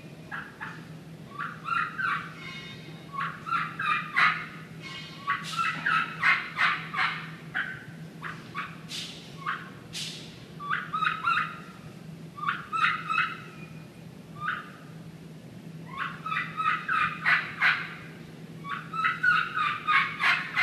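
A turkey caller imitating wild turkey calls by mouth: runs of short, sharp notes in bursts of a second or two, with brief pauses between, over a faint steady hum.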